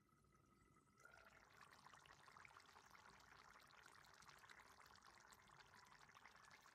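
Pork boiling in coconut milk in a wok, bubbling and crackling faintly. The crackle grows louder about a second in, as the lid comes off the pan.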